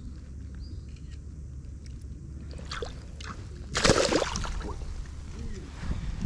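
A tarpon splashing in shallow water as it is let go at the bank and kicks away, with the loudest splash about four seconds in and smaller sloshes around it, over a low steady rumble.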